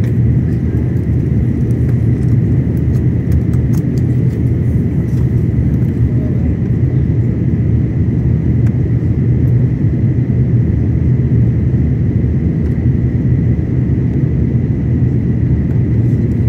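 Steady cabin noise inside an Airbus A330-900neo on descent: its Rolls-Royce Trent 7000 engines and the airflow over the fuselage make a deep, even rumble, with a thin steady whine running through it.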